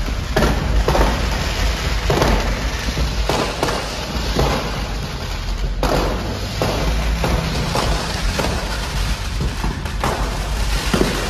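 Fireworks and firecrackers going off in quick succession: many sharp bangs and crackling over a constant deep rumble.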